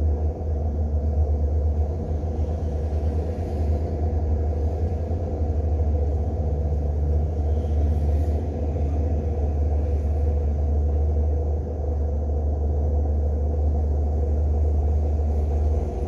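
Steady low rumble of a car on the move, mostly deep road and engine noise with no sudden events.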